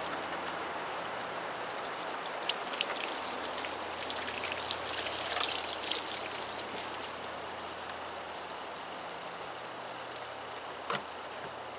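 Water pouring out of an upturned, shot-through plastic gallon jug and splattering onto the ground, heaviest in the middle and thinning to a trickle, with a single knock near the end.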